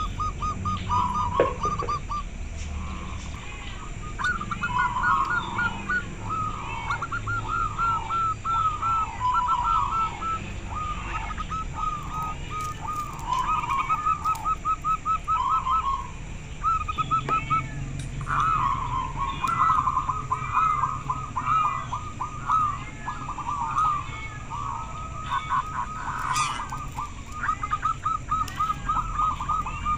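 Several zebra doves (perkutut) cooing over one another: rapid runs of short repeated coos at slightly different pitches, overlapping almost throughout, with a brief lull about two seconds in.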